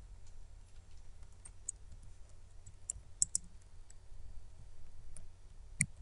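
Computer keyboard keys clicking as code is typed, in scattered single presses with a few quick ones about three seconds in and one more near the end. A low steady hum lies underneath.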